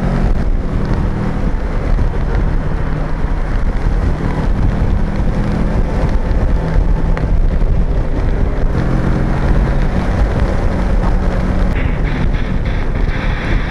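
Motorcycle riding at speed: heavy wind rushing over the microphone, with the steady drone of a Kawasaki Versys 650's parallel-twin engine underneath. The engine drone sinks under the wind after the start and comes through clearer again about two-thirds of the way in.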